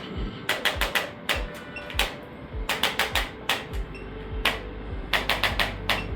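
Spring-loaded chiropractic adjusting gun firing sharp clicks, some single and some in quick runs of several. Background music with a steady low beat plays under the clicks.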